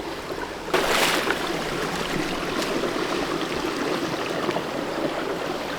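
Stream water running steadily, with a short louder rush of noise about a second in.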